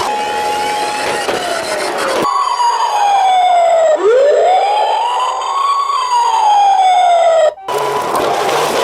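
Emergency-vehicle sirens wailing, several at once, their pitch sliding down and then sweeping up again. They play clean from about two seconds in, over a noisy background at the start, and cut off abruptly near the end.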